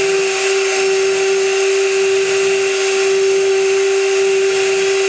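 High-frequency spindle of a CNC gantry milling machine running steadily with a high whine while milling an aluminium part.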